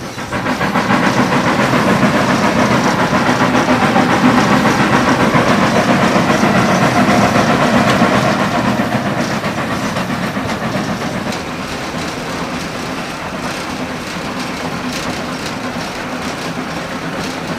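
WWII Kriegslok (DR class 52) steam locomotive heard from the footplate on the move, with a dense steam hiss and the clatter of the running train. It gets louder about half a second in and eases off somewhat after about nine seconds.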